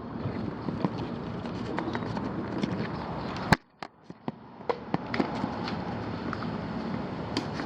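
Scuffing, rustling and scattered knocks of a person climbing about on a ladder at the roof edge while holding the camera, with one sharp knock about three and a half seconds in, after which the sound nearly cuts out for a moment.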